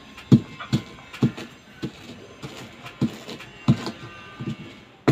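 Chili peppers being crushed with salt in a dish for a dipping sauce: a run of uneven dull knocks, roughly two a second.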